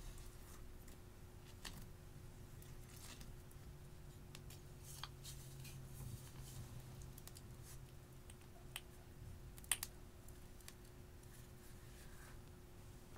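Slime being handled and squeezed through a garlic press: faint, scattered sharp clicks and soft sticky sounds over a low steady hum, the sharpest a quick double click near the end.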